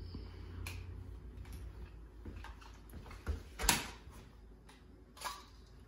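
Footsteps on a tile floor, then sharper knocks and clicks of a handgun being handled as a person crouches. The loudest knock comes just past the middle.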